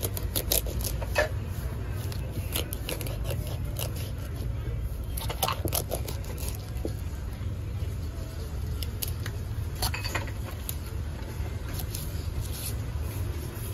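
Kitchen clatter: scattered clinks, clacks and scrapes of utensils and dishes over a steady low hum.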